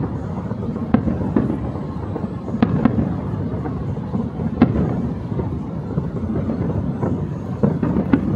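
Aerial fireworks display: a continuous rumble of booming bursts, with sharper bangs standing out every second or two.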